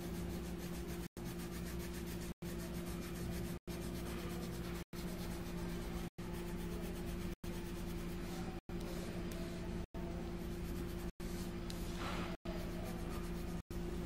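Pencil scratching on paper as a drawing is shaded, over a steady low hum. The sound cuts out for an instant about every second and a quarter.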